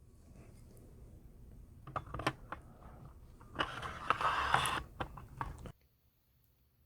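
Parts of an MP-661K Drozd BB machine gun being handled and fitted back together: a few sharp metal clicks about two seconds in, then a longer scraping rattle, cutting off suddenly near the end.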